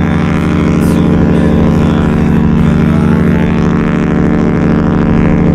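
Rhapsody of the Seas' ship horn sounding one long, steady blast, the departure signal as the cruise ship sails away.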